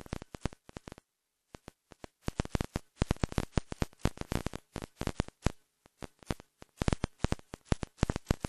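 Irregular crackling clicks, like static on the audio feed, some sharp and loud. The sound cuts out completely for about half a second about a second in.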